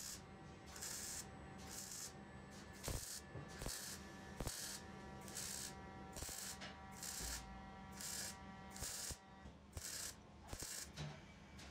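MIG welder stitch-welding thin sheet steel: a rapid string of short arc bursts, each under a second, separated by brief pauses, about a dozen in all.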